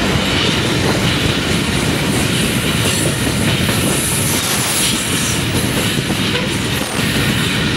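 Freight train of covered goods wagons rolling past at close range: a steady, loud rumble and rattle of wagon wheels on the rails.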